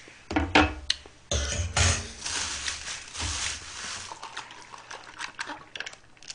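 Eating and handling noises at a table: a spoon clicking and scraping on ice cream cake and its container, scattered knocks, and a stretch of rustling starting about a second in.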